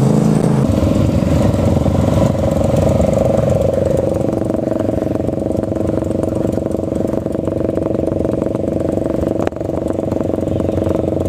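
Motorcycle engines idling steadily. A single sharp click comes about nine and a half seconds in.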